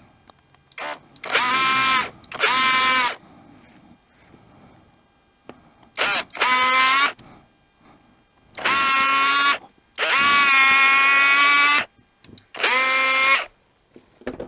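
Electric drill driving small screws in six short bursts, its motor whine rising in pitch as each run starts. The screws fix the two halves of a trimmer's recoil-starter pulley together.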